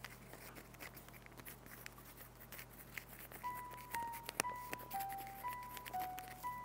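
Light scratching and ticking of a pen writing on paper. A soft, sparse background melody of single held notes comes in about halfway through.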